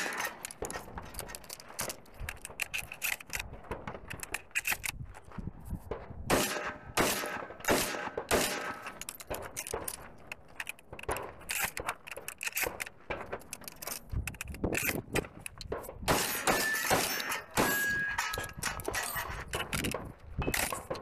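Benelli M4 semi-automatic 12-gauge shotgun fired in strings of sharp shots at steel targets, sparser at first and coming thick and fast from about six seconds in. A few short metallic rings of struck steel plates come near the end.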